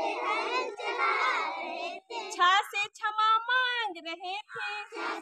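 A group of children singing a Hindi alphabet song together, with a single voice singing alone for a couple of seconds in the middle before the group comes back in.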